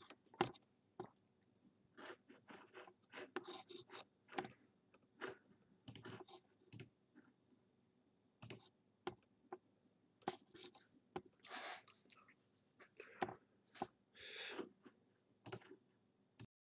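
Faint, irregular clicks and small crackles from working at a computer desk: mouse clicks and handling noise, with two short rustling sounds near the end.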